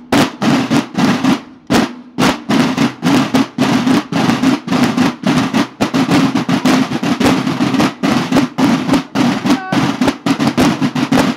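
Several field drums of a banda de guerra (drum-and-bugle corps) playing a march cadence together: quick repeated strokes and short rolls, broken by a few brief pauses.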